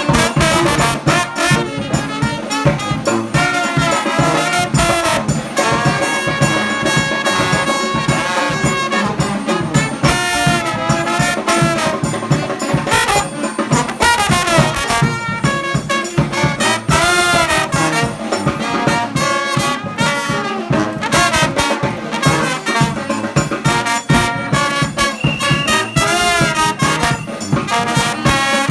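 New Orleans-style brass band playing live, trumpet and trombone lines over a steady beat.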